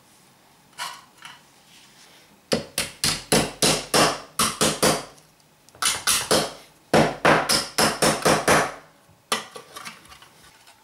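Rapid hammer blows on the tabs of a thin tinned-steel can, flattening the metal, in three quick runs of strikes at about four to five a second, with a last single blow near the end.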